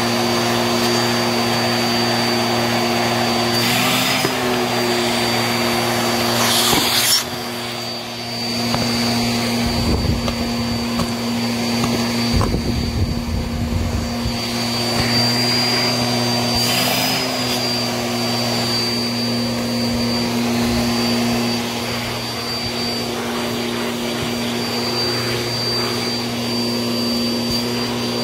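Bissell upright vacuum cleaner running steadily over carpet, its motor holding a constant hum with a high whine above it. Short bursts of gritty hiss come about 4, 7 and 17 seconds in as it sucks up debris, with a brief dip in level just after the second and some low rumbling from the floor head a few seconds later.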